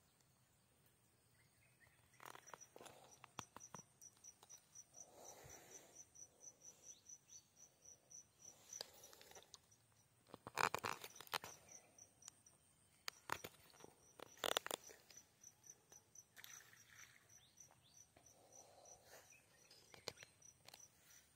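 Faint, high-pitched insect chirping in a rapid, even pulse train that starts a couple of seconds in and runs on with a short break near the middle. A few sharp clicks sound around the middle, the loudest things heard.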